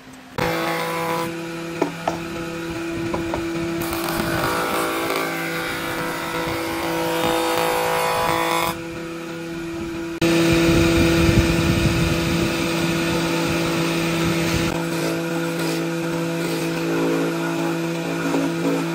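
Electric woodworking machines running with a steady motor hum while cutting and shaping wood. The cutting noise changes abruptly several times and is loudest for a few seconds starting about ten seconds in.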